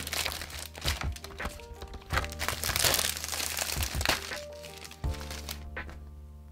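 Thin protective plastic film being peeled off a clear hard plastic laptop shell, crinkling and crackling with sharp clicks of the plastic, dying away about five seconds in. Soft background music plays underneath.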